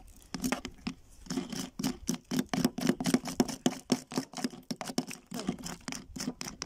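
Small metal hammers tapping a chisel and chipping at a soft plaster excavation block: many quick, irregular light taps from two people working at once.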